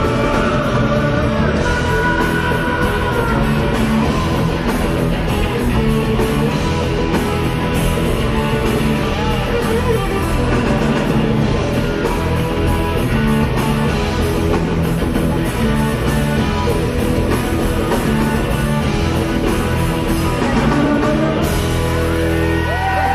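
Live rock band playing loudly on stage: electric guitars and drums, with a voice singing over them.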